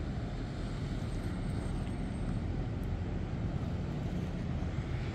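Steady low engine rumble of a Thames Clipper (Uber Boat) river bus running along the river, mixed with the river's general drone.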